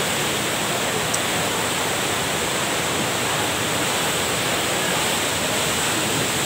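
River in flash flood: a torrent of muddy floodwater rushing past, a steady, even rush of water.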